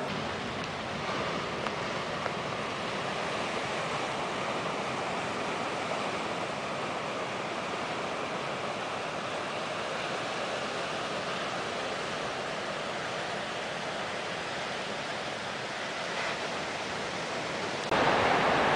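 Steady wash of sea waves breaking on a rocky shore; the rush gets louder near the end.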